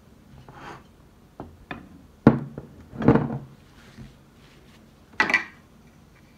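Chopped tomato pieces tipped into a glass food-processor bowl, and glass bowls knocking against the wooden tabletop: three main knocks and clatters about two, three and five seconds in.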